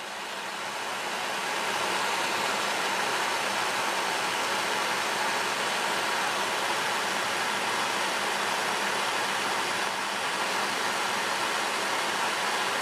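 Propane torch flame burning with a steady hiss, swelling over the first two seconds and then holding steady while it heats a steel screwdriver shaft for tempering.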